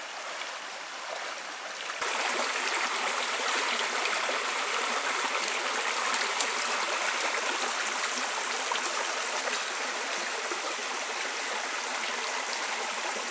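Shallow forest stream running and splashing over rocks in a steady rush of water, which becomes suddenly louder about two seconds in.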